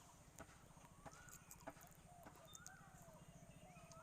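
Faint bird calls, a run of short repeated chirps, with a few light clicks over a low steady hum.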